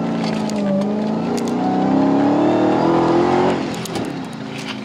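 The supercharged 6.2-litre Hemi V8 of a 2015 Dodge Challenger SRT Hellcat pulls under acceleration, heard from inside the cabin. Its pitch climbs steadily, then eases off about three and a half seconds in.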